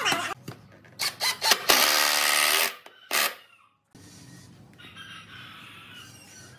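Cordless drill running in short bursts into wood, the longest about a second near the middle, with a few sharp clicks before it. From about four seconds in it falls quiet, leaving a faint rooster crowing.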